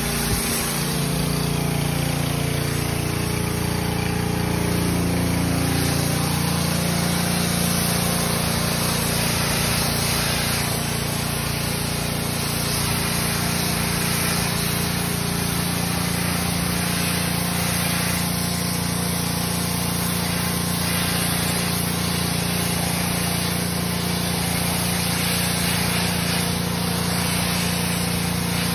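Gas-engine pressure washer running steadily while its wand sprays a jet of water over freshly stamped concrete, washing off the powder left from stamping.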